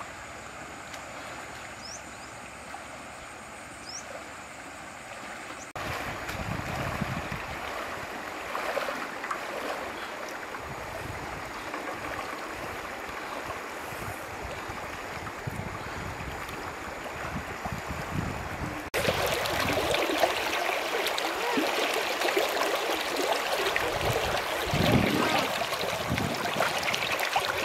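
Shallow river flowing and rippling over stones, a steady rush of water that gets louder at about six seconds in and again about two-thirds of the way through.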